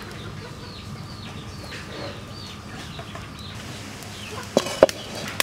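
Chickens clucking and peeping: a run of short, high calls every half second or so. About four and a half seconds in come two sharp knocks.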